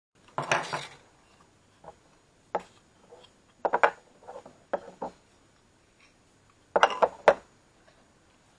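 3D-printed plastic parts being handled and set down: irregular clacks and knocks, some in quick pairs or clusters, with short quiet gaps between.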